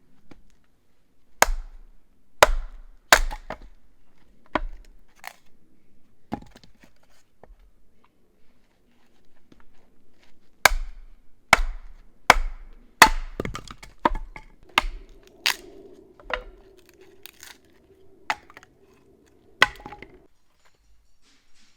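A blade chopping into wood: about fifteen sharp, loud strikes at uneven intervals, some in quick pairs.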